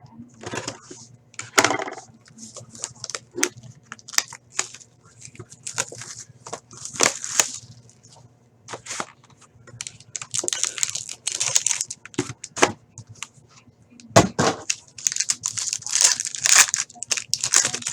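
Sealed packaging of a hockey card box being torn open and handled: repeated crinkly rips of plastic wrap and paper with sharp clicks and crackles, busiest near the end.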